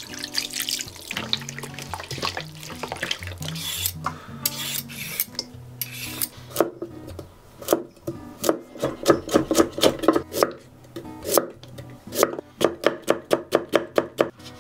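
Chef's knife chopping carrot and daikon radish into matchsticks on an end-grain wooden cutting board: a run of sharp, even knocks, about four a second, in the second half. Before it, a few seconds of wet rubbing as chicken is worked in marinade in a steel bowl. Background music plays throughout.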